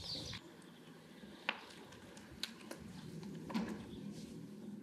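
Quiet outdoor ambience, with about four faint, short, sharp ticks scattered through it.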